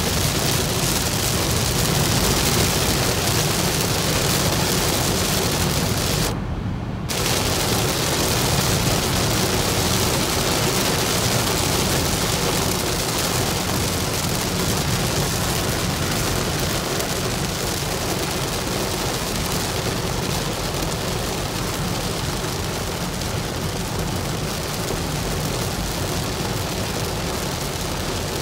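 Heavy rain pelting the windshield and roof of a car at highway speed, heard from inside the cabin over steady road noise. About six seconds in, the rain noise cuts out for under a second as the car passes under an overpass.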